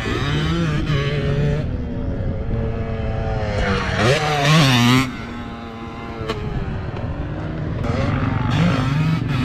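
Motocross dirt bike engines revving up and down through the gears. The loudest is a hard rev that climbs and drops back about four seconds in.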